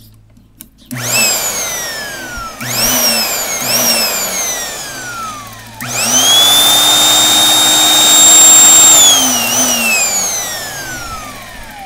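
Homemade electric chainsaw driven by a Porter Cable 8-amp drill motor, running free with no cut. It is switched on in three short blips and then held on for about three seconds, its whine rising as it spins up and falling slowly each time it coasts down.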